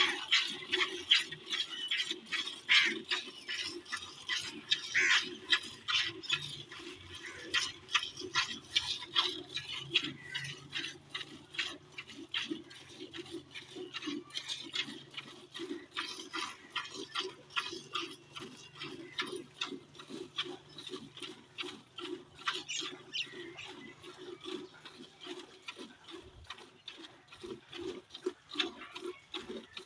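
Farm animals calling: a dense run of short, rapid calls that goes on throughout.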